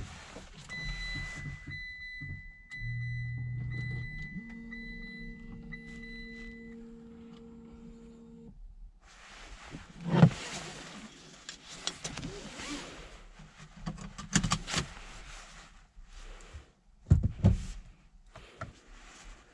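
Inside the cabin of a Mitsubishi Eclipse Cross PHEV as it is switched on: a steady high electronic tone with short breaks for about six seconds, over a low electric hum from about three to eight seconds in. Then rustling and several sharp clicks of handling inside the car.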